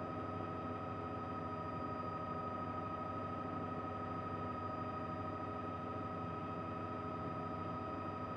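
Helicopter noise heard from inside the cabin: a steady drone with a high, unchanging whine that does not vary.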